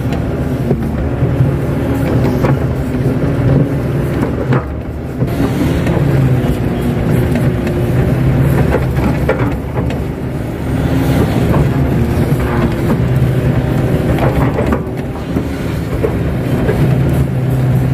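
Kato hydraulic excavator's diesel engine running under load, heard from inside the cab, its pitch rising and falling as the hydraulics work the bucket, digging a tree out of a mud bank by its roots.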